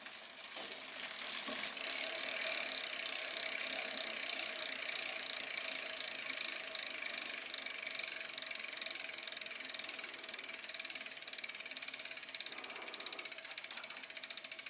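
Freewheel on a bicycle's rear wheel ticking rapidly as the wheel spins freely, its pawls clicking over the ratchet. The sound is louder for a moment about a second in, and the clicks spread out toward the end as the wheel slows.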